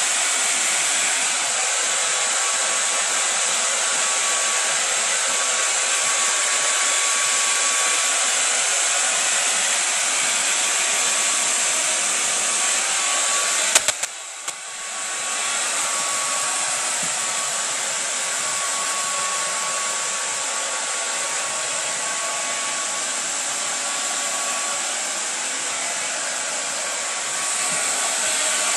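Handheld hair dryer blowing steadily with a high hiss and a faint steady whine. About halfway through it clicks and drops off briefly, then picks up again.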